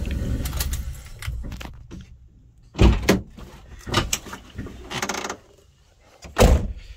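Minivan engine idling, then shut off about a second in. It is followed by door clunks: a loud one about three seconds in, a few smaller knocks, and a loud slam of the door near the end.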